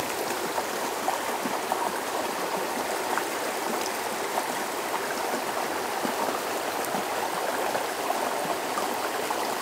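Shallow mountain creek running over a rocky bed: a steady rush of flowing water.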